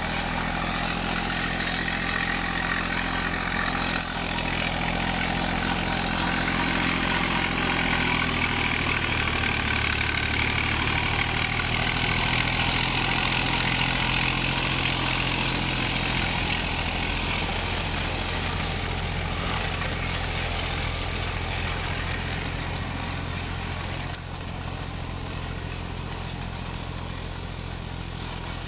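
Engine of a 1965 Volvo BM SM 661 'Stor-Nalle' forwarder running steadily under load as it pushes through deep snow. It gets louder a few seconds in, is loudest as the machine comes close, and drops back near the end.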